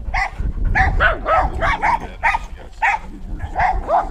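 A dog barking and yipping in a rapid run of short, high calls, about three a second, over a low rumble.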